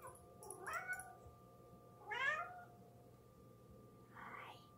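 Domestic cat meowing three times, the first two calls rising in pitch and the third softer, near the end: a cat coming up to its owner and "talking" to her.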